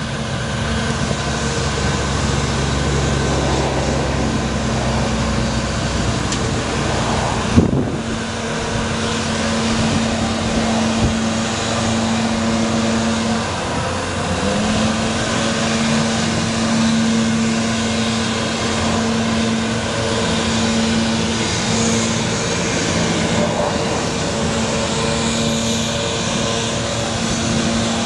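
Bucket truck's engine running with its hydraulic system working the aerial boom as it is swung and lowered: a steady hum with a held whine that drops out for a moment and comes back. A single sharp click about eight seconds in.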